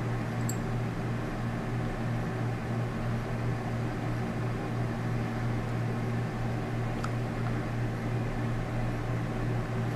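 Steady low background hum, with a faint tick about half a second in and another about seven seconds in.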